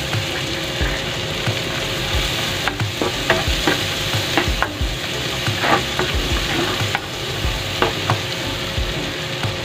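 Diced onion and garlic sizzling in butter and oil in a nonstick frying pan, stirred with a spatula that scrapes and taps against the pan now and then.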